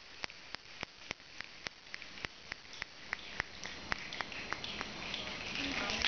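Slow, steady clapping from an audience, about three claps a second, with a growing murmur near the end: encouragement for a slam poet who has forgotten a line.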